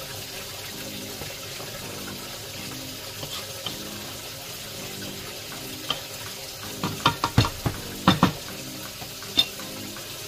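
A utensil stirring a thick, wet chicken stew in a pot, with a steady wet sizzle. From about six seconds in there is a quick run of sharp knocks of the utensil against the pot, and one more knock near the end.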